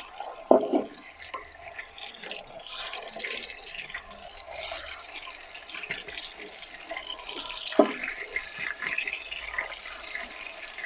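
Hot oil sizzling and crackling in a large steel pot as raw beef chunks and marrow bones are dropped into it, with a louder knock as a piece goes in about half a second in and again near eight seconds in.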